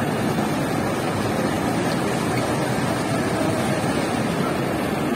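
Zayandeh River water rushing and churning around the stone footing of the Si-o-se-pol bridge, a steady full rush with no break.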